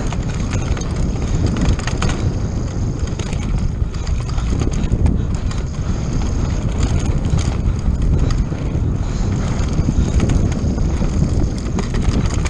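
Wind buffeting the action camera's microphone as a mountain bike descends a dirt trail at speed, with tyres on loose dirt and the bike rattling and clicking over bumps.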